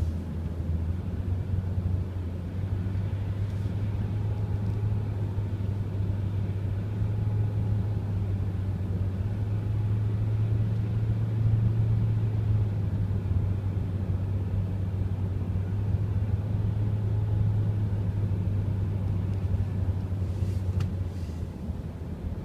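Steady low rumble of a car driving along a highway, heard from inside the cabin: engine and road noise.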